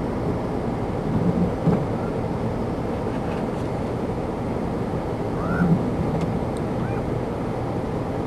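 Steady wind noise and storm rumble on the microphone during a heavy snowstorm, with a few short honk-like calls rising and falling, about five and a half seconds in and again near seven seconds.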